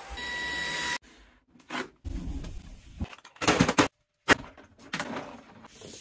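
Orfeld V20 cordless stick vacuum running with a steady whine, stopping abruptly about a second in. It is followed by a string of short, sharp scraping and knocking sounds, the loudest about halfway through.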